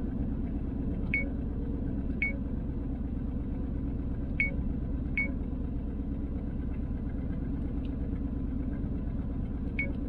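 The 1968 Chevelle Nomad wagon's engine idling with a steady low rumble, an engine with a long-standing misfire. Short high beeps sound about five times as the dash cam's menu buttons are pressed.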